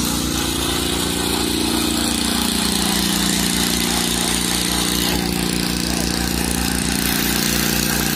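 Small engine of a surface slab vibrator running steadily with an even, pulsing throb, vibrating fresh concrete to drive out voids.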